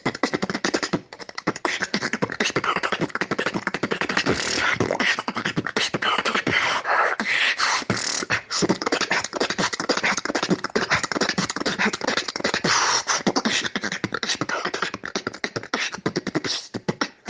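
A solo beatboxer making a fast, dense, unbroken stream of vocal percussion sounds, recorded as a WhatsApp phone voice message.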